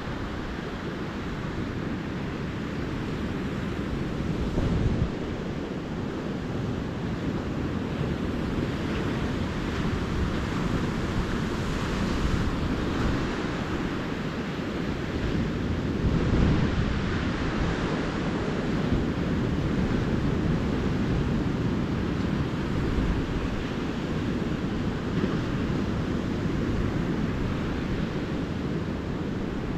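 Ocean surf washing gently onto a beach, a continuous rushing with slow swells as waves break, the most marked about twelve and sixteen seconds in. Some wind buffeting on the microphone.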